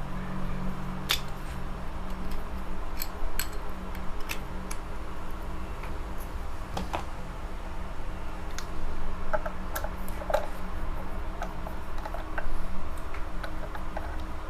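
Scattered light clicks and small taps from handling the ceiling fan's capacitor and multimeter, over a steady low hum.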